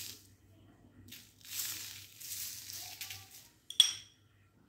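Sugar sprinkled by hand onto raw empanadas on parchment paper, a soft sandy hiss in a few sweeps. It is followed near the end by one sharp, short click with a brief ring, over a faint steady hum.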